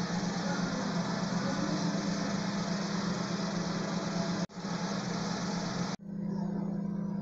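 A steady mechanical hum with an even hiss over it. It breaks off abruptly about four and a half seconds in and again at six seconds; after the second break the hiss is much weaker and the hum goes on.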